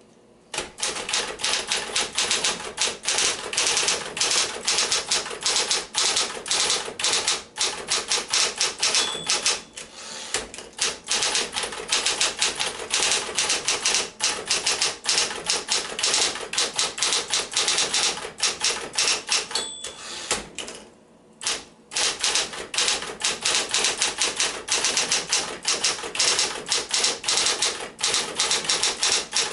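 Smith-Corona Coronet Electric 12 electric typewriter typing fast, a rapid run of key and typebar strikes. It runs smoothly after adjustment. Short dings sound twice, about ten seconds apart, like the line-end bell, and there is a brief pause in the typing a little after the second one.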